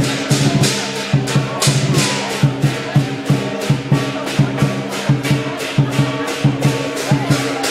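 Chinese dragon-dance percussion: a drum beating with crashing cymbals in a steady rhythm of about three to four strokes a second, over a sustained low ringing.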